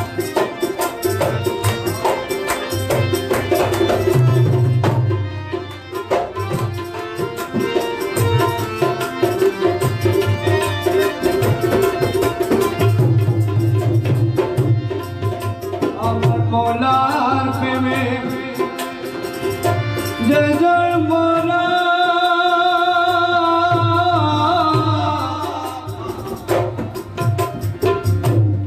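Instrumental interlude of Bengali devotional folk music: hand drums play a steady, fast rhythm under a harmonium. About two-thirds of the way through, held, wavering harmonium notes come to the fore.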